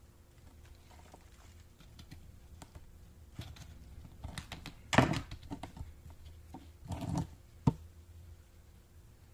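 A blunt knife and a small plastic plant pot of potting soil being handled on a workbench: light scraping and clicks, then heavier knocks about five seconds in and again around seven seconds, with one sharp knock just before the end.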